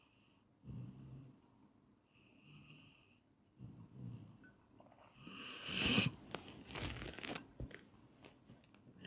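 Someone snoring in sleep, with soft rasping breaths every second or two. About five seconds in comes a louder, crackling stretch lasting about two seconds.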